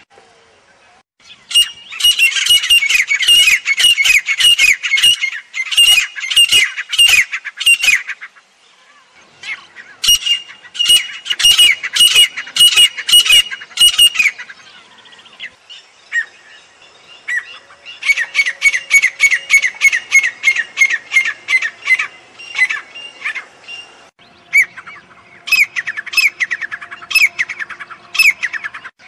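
Grey francolin (teetar) calling: four bouts of loud, rapidly repeated harsh, ringing notes, each lasting several seconds, with short pauses between them.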